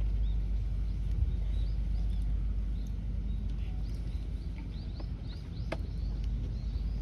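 Small birds chirping in quick short calls over a low, steady outdoor rumble, with one sharp click about five and a half seconds in.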